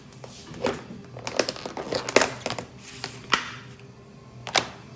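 Crinkling and sharp clicks of a food container and its packaging being handled and opened: an irregular scatter of snaps and taps, the loudest a little past two seconds in.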